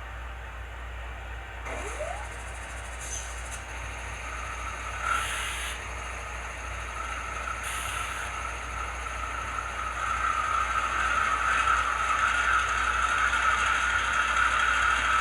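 ESU LokSound decoder playing a startup recording of a GE AC44C6M diesel locomotive through an HO scale model's small speaker. There are short hisses of air early on, and a steady engine tone builds and grows louder from about a third of the way in as the prime mover comes to life.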